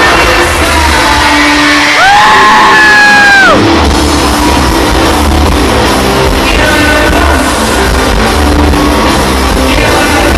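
Live rock band playing at full volume with sung vocals, heard from the stands of a stadium. A long, high held note enters about two seconds in and bends down as it ends.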